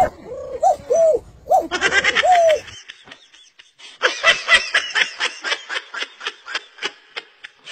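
A person laughing hard in rapid bursts, about five a second, starting about four seconds in. Before it comes a run of short rising-and-falling calls that stops about three seconds in.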